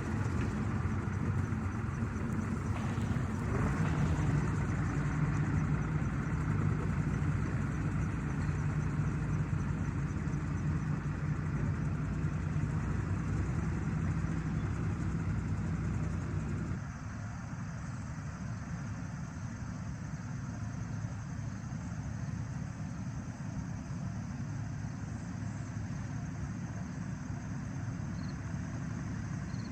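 Tractor engine running steadily under load. A little past halfway through it drops abruptly to a quieter, duller hum.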